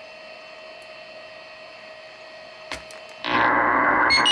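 Kenwood TS-440S HF transceiver: a faint steady hiss with a low hum tone, a click near the end, then the receiver's audio comes on suddenly and loudly as dull, muffled static from its speaker.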